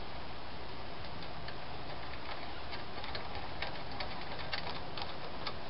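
Scattered light clicks and ticks of small metal parts being handled as the throttle linkage and spring are fitted to a Tecumseh lawn mower engine's carburetor, more frequent in the second half, over a steady background hiss.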